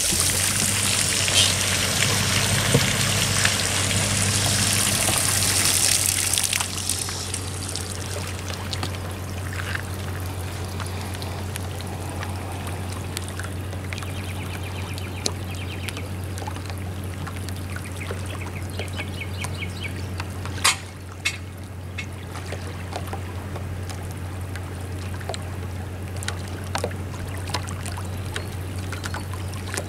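Small lake waves lapping and trickling on a gravel shoreline, over a steady low hum. The noise is louder for the first six seconds, then settles, and a single sharp click sounds about two-thirds of the way through.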